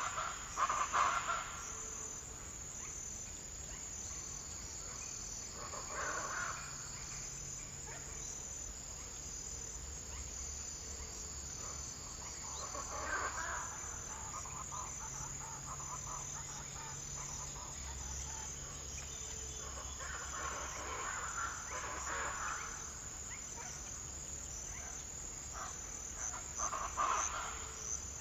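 Crickets chirping in a steady, rapidly pulsing high-pitched chorus. A separate, lower call rises over it every several seconds.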